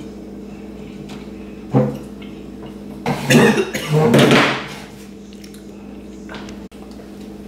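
Steady low hum, with a short knock a little under two seconds in, then a chair scraping over the floor for about a second and a half as someone pushes back and stands up from the table.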